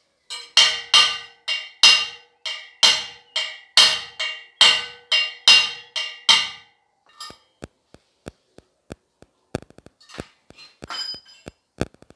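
Metal part struck over and over, well over a dozen sharp ringing blows at about two a second, stopping about seven seconds in. Scattered light clicks follow.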